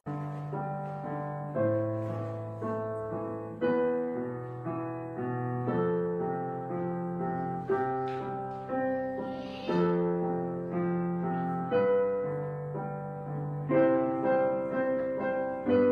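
Background piano music, with notes and chords struck about once a second and left to fade.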